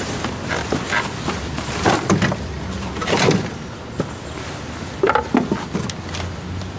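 Irregular knocks and clatter of wooden fence boards being handled and fitted during a fence repair.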